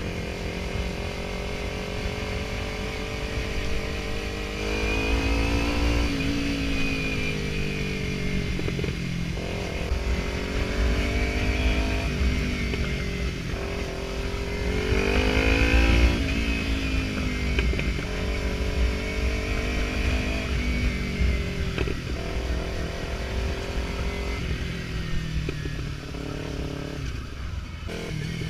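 Kawasaki Ninja 300 parallel-twin engine running under way, its revs rising and falling several times as it pulls through the gears, loudest about halfway through.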